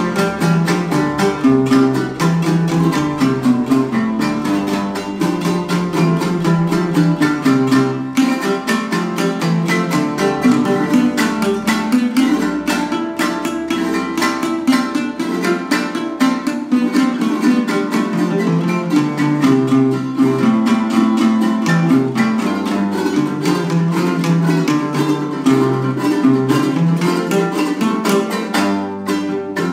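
Son jarocho string band playing an instrumental passage: guitar-like instruments strummed in a quick, steady rhythm over a stepping bass line.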